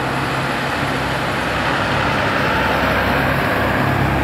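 Road traffic passing close: a bus pulling away while CNG auto-rickshaw and motorbike engines run by, a steady mix of engine hum and tyre noise that grows a little louder in the second half.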